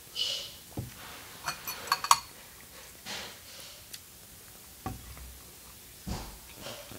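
Hands working over a platter of fried calamari: a lemon wedge squeezed over the pieces, then the crisp calamari picked at by hand, giving a cluster of small sharp clicks about two seconds in, a few soft hisses and a couple of low thumps.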